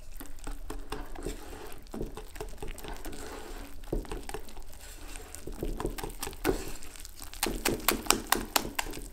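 Wire whisk beating a thick batter of eggs, kefir and flour in a glass bowl: wet stirring with the wires clicking against the glass. Near the end it speeds up into a quick run of clinks, about six a second.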